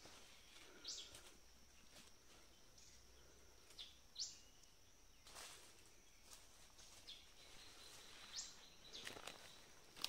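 Quiet rainforest ambience: a steady high insect drone, three short rising bird calls about four seconds apart, and a few crunching footsteps on dry leaf litter near the middle and end.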